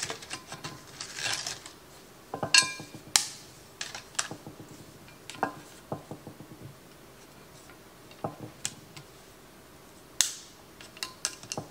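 Dry oven-ready lasagna noodles snapped by hand into pieces: scattered sharp cracks and clicks at irregular intervals, the loudest about two and a half, three and ten seconds in.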